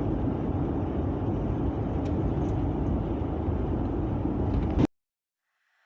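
Steady road and engine noise inside the cab of a moving Sprinter cargo van, cutting off abruptly near the end.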